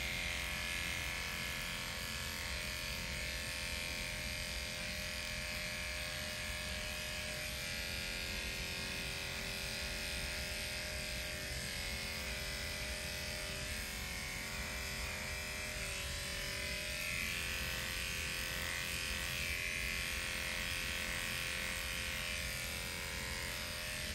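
Cordless electric dog clippers running steadily as they clip a dog's coat, a constant motor buzz.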